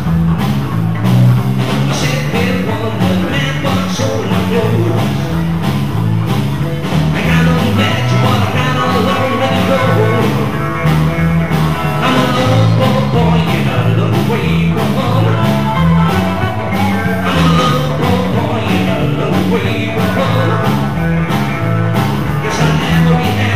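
Live rock and roll band playing: electric bass guitar with a steady bass line changing note in quick even steps, a hollow-body electric guitar and a drum kit, loud and continuous.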